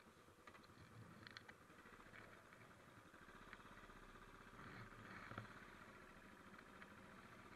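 Royal Enfield motorcycle engine running faintly at low throttle as the bike rolls slowly along a driveway, with a few light ticks.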